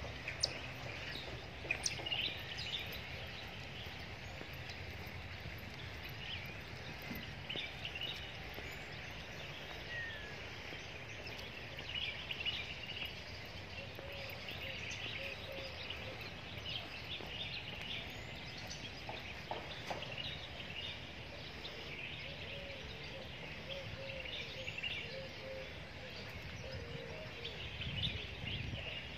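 Small birds chirping and twittering in short calls throughout, over a steady low background noise.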